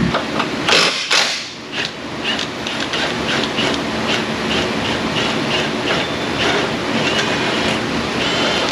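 Metal tools and parts clinking and knocking under a car, with short sharp clicks a few times a second.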